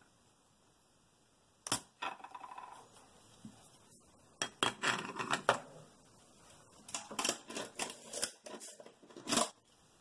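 Spring-loaded desoldering pump snapping sharply as its plunger fires to suck molten solder off a capacitor lead, followed by a series of clicks and knocks of the pump and soldering iron being handled and set down on a wooden desk.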